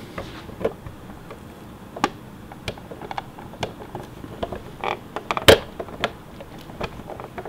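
Scattered clicks and light knocks of a hand fitting a cover onto a Singer Heavy Duty sewing machine, the sharpest knock about two-thirds of the way through.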